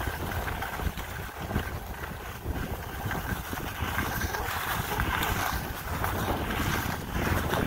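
Wind buffeting the microphone, with the hiss and scrape of skis sliding over packed snow.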